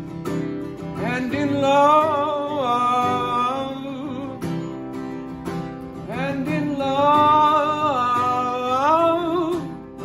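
Solo live performance: a man singing two long wordless phrases, the first about a second in and the second around the middle, over gently played ukulele.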